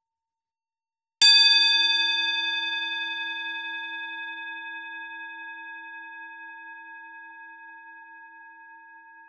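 A bowl struck once, about a second in, ringing on with several tones at once. The highest tones die away within a few seconds while the lower ones keep ringing and slowly fade, the lowest with a slight wavering beat.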